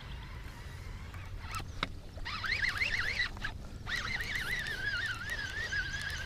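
Baitcasting reel whining as line is cranked in fast, its pitch wobbling with the turns of the handle; it starts about two seconds in after a couple of sharp clicks and breaks off briefly midway.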